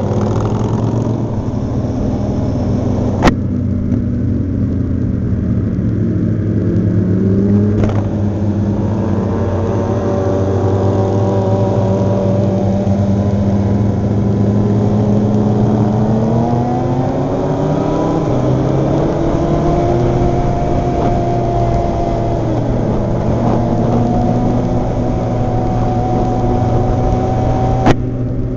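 Sport bike engine running under way, heard from the moving motorcycle, its pitch climbing slowly for several seconds past the middle and then dropping sharply. There are two sharp knocks, one about three seconds in and one near the end.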